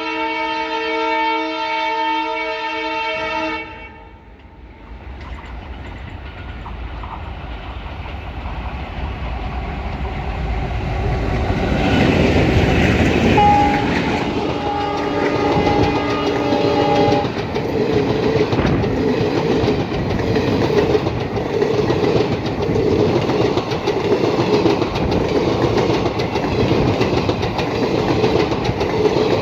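ALCO diesel locomotive horn sounding a multi-note blast that ends about three and a half seconds in. The locomotive's engine then grows louder as it approaches, and it sounds its horn again for about four seconds near the middle. The train then passes with a steady clickety-clack of wheels over the rail joints.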